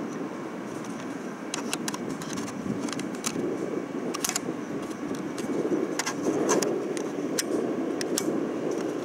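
Electric locomotive, a MÁV V43 'Szili', rolling slowly into the station: a steady low rumble with sharp metallic clicks and brief squeals from the wheels scattered through it, swelling about six seconds in.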